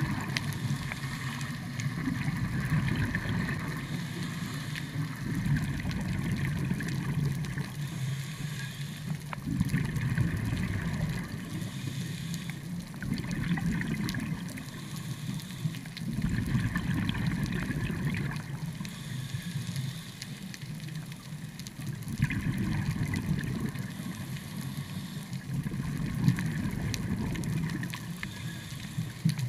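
Scuba diver breathing through a regulator underwater: exhaled bubbles gurgle in swells about every four seconds, with a fainter hiss of inhalation between them.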